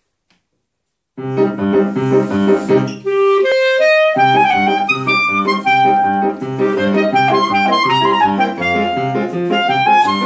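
A clarinet and a grand piano start playing together about a second in. The piano pulses with repeated chords under a slow, lyrical clarinet melody.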